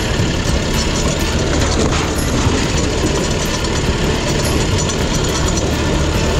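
Small riding-mower engine running steadily and loudly, with a fast low pulsing from its firing.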